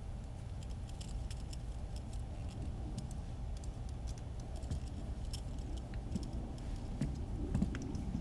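Light metallic clicks and clinks, irregular and scattered, as a hex driver and small screws fasten a brushless motor to a carbon-fibre drone arm. A low, steady background hum runs underneath.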